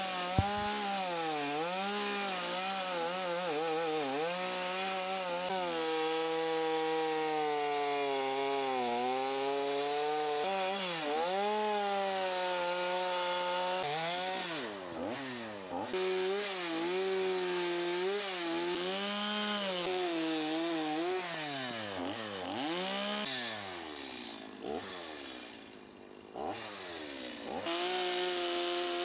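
Gas two-stroke chainsaw cutting into a wooden log to carve curves, its engine pitch repeatedly rising and falling as the cut goes on. Near the end the saw drops to a lower, quieter run for a couple of seconds, then revs back up.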